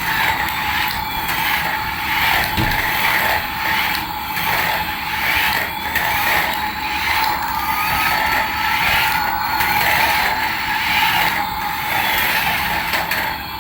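Battery-powered toy running steadily, a constant whine with a rhythmic pulsing a little more than once a second.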